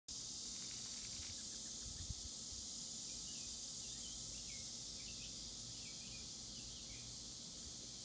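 Steady high-pitched chorus of insects singing, with a few short bird chirps in the middle seconds and a brief soft bump about two seconds in.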